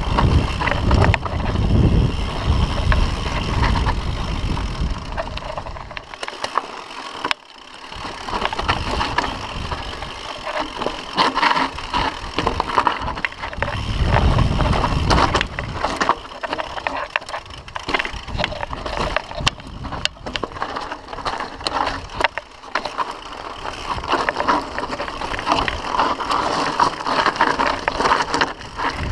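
Mountain bike riding fast down rocky dirt singletrack: tyres crunching over dirt and loose stones while the bike rattles steadily. Wind rumbles on the microphone near the start and again around the middle.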